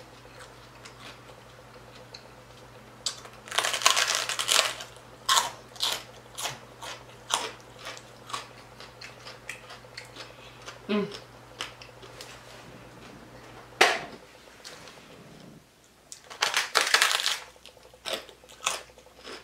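Crunchy bites into a pork rind tostada and chewing: two loud bursts of crackling crunch, about four seconds in and again near the end, with smaller crunches between.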